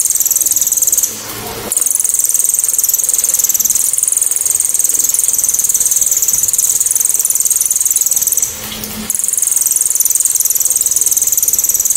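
Cililin songbird singing its 'tembakan' (shot) song: long, loud, very high-pitched, rapid trills, sharp and clear, broken by two short pauses, about a second in and about eight and a half seconds in.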